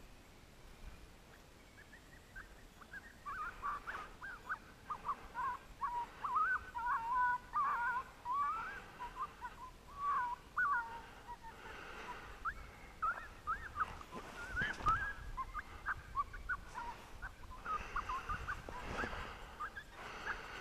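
Coyotes yipping with short wavering howls, a rapid run of quick rising and falling calls that starts a couple of seconds in and keeps going, getting louder after about three seconds.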